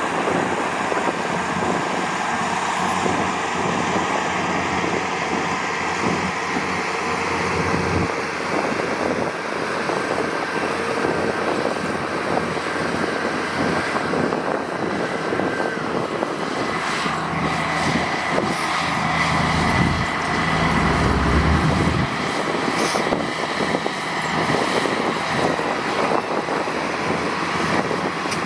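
Diesel engines of heavy road-construction machinery (dump truck and crawler bulldozer) running steadily, with a steady whine over the engine noise. About twenty seconds in, a deeper engine rumble swells for a couple of seconds.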